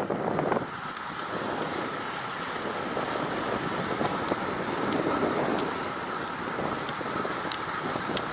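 Wind rushing over the microphone while riding a road bike, a steady noise that eases about half a second in.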